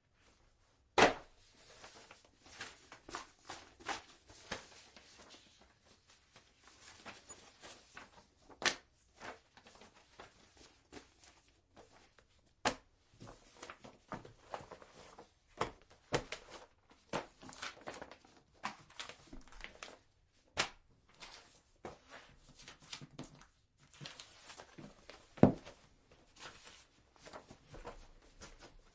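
Paper books and a folder being handled: pages rustling and flipping in short irregular bursts, with a few sharp thumps of a book or folder being banged down, the loudest about a second in and again near the end.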